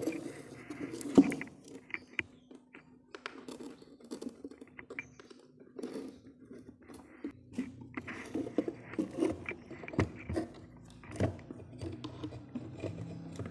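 Handling noise of an audio cable's plug being worked into an active speaker's input jack: scattered clicks, knocks and scrapes, the sharpest about a second in, over a faint steady hum.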